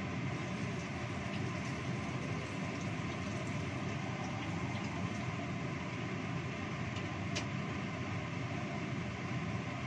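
Steady rushing of a gas stove burner heating an empty wok, with one faint click about seven and a half seconds in.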